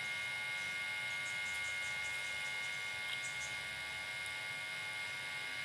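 Steady electrical hum with a thin high whine from the powered-up Densen AM120 mixer amplifier.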